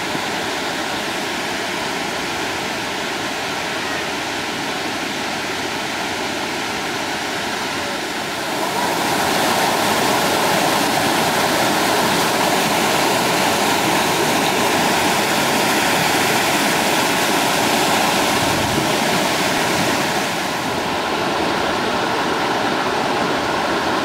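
Water rushing and splashing as a rocky stream cascades between boulders: a steady rush that grows louder about a third of the way in and eases back a little near the end.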